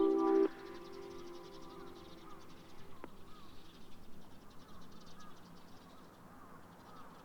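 The end of a chime melody from an outdoor municipal disaster-prevention radio loudspeaker: the last chord cuts off about half a second in, and a fainter echo of the notes lingers for about a second more. Then faint outdoor quiet with scattered faint bird calls.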